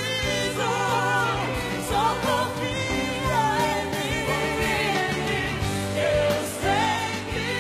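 Portuguese gospel duet sung live, a man's and a woman's voice together with vibrato over band accompaniment.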